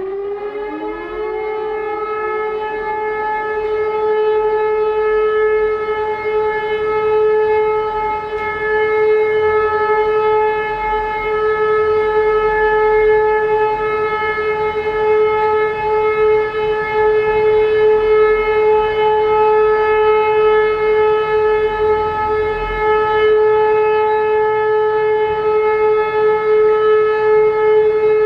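E57 motor-driven civil defence siren finishing its spin-up in the first second, its pitch gliding up, then holding one loud, steady tone.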